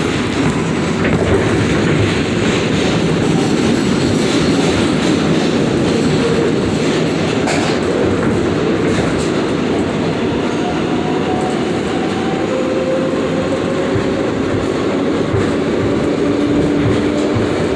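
New York City 7 subway train running, heard from on board: a steady rumble and clatter of wheels on the rails. A faint whine comes in during the second half.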